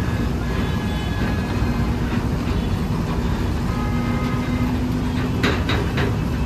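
Heavy haulage truck engine running with a steady low rumble. A few short sharp knocks come near the end.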